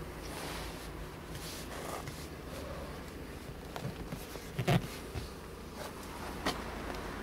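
Handling noise: a few short soft knocks and rubs as a hand presses the car's leather seat bolster, loudest just under five seconds in, over a steady low background rumble.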